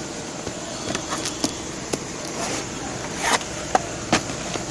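Light clicks and short scrapes of a laptop being handled while it is taken apart, about eight of them at uneven intervals, with the loudest scrape a little past three seconds in. A steady low hum runs underneath.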